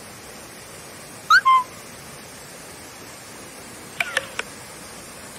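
Steady rush of a waterfall, with a short whistled call about a second in, a rising note followed by a lower one, and three quick sharp chirps about four seconds in.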